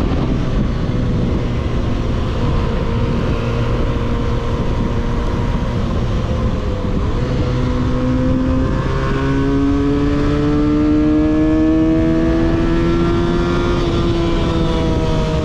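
A 300 cc motorcycle's engine running through an aftermarket exhaust while being ridden, over a steady rush of noise. Its pitch steps up about halfway through, climbs slowly, then falls off near the end as the revs drop.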